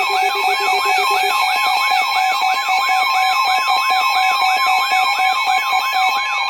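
Emergency alert attention signal. A fast, repeating yelp-siren sweep, about three to four rises a second, plays over steady alarm tones, including a high continuous tone. A lower pulsing tone drops out a little over a second in.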